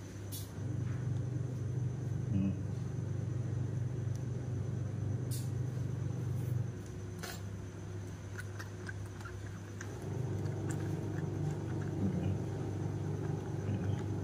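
A steady low mechanical hum that gets louder about a second in, eases near seven seconds and swells again near ten seconds, with a few sharp clicks.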